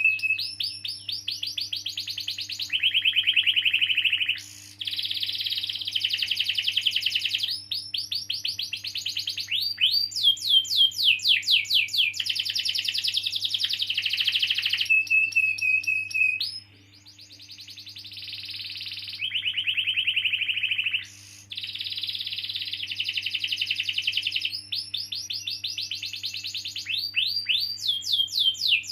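Domestic canary singing a long rolling song: rapid trills of falling notes alternating with buzzy rolls and a short held whistle, phrase after phrase with few pauses.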